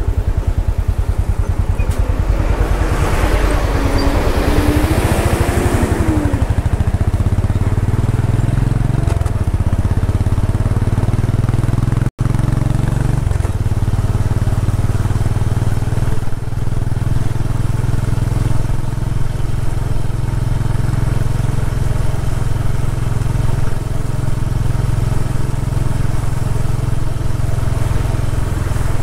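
Royal Enfield Bullet 500's single-cylinder four-stroke engine, heard close from the bike, idling at a stop and then pulling away and running steadily under way. Other traffic noise swells and fades in the first few seconds.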